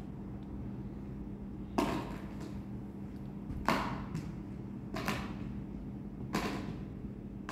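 A steel spoon clinking against a glass bowl of soup: four separate short clinks, a second or two apart, over a faint steady low hum.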